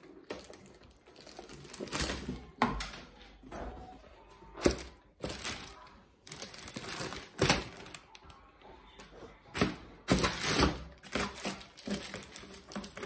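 Clear plastic bag rustling and crinkling as it is handled, in uneven bursts, with several sharp knocks from the cardboard box and its contents being moved.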